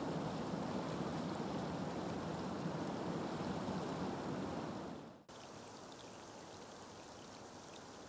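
Steady rush of flowing water. About five seconds in it cuts off sharply and gives way to a quieter, even patter of rain falling on still water, with a few light drop ticks.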